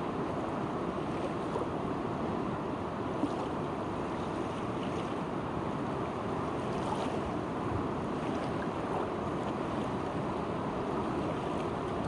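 Fast-flowing river current rushing steadily over rough water, a constant full roar of water with no breaks.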